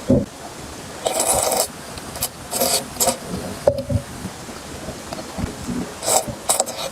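Close-miked eating sounds: a person chewing food in several short, noisy bursts, the longest about a second in and another near the end.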